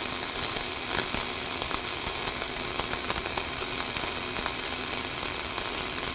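Flux-core wire welding a vertical cap pass: the arc's steady crackling sizzle, dotted with small irregular pops.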